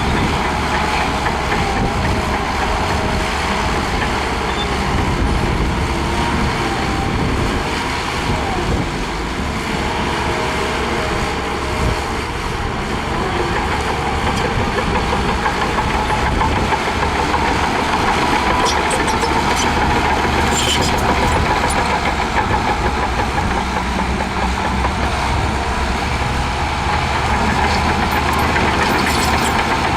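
Heavy diesel earthmoving machinery running steadily, with the engine note wavering a little in pitch as the load changes.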